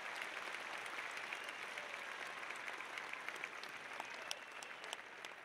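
Crowd applauding: many hands clapping together, gradually fading away.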